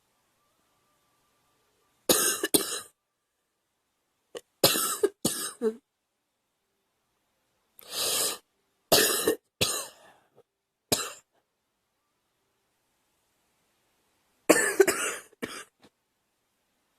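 A girl coughing in a series of short fits, each of a few harsh coughs, with complete silence between the fits.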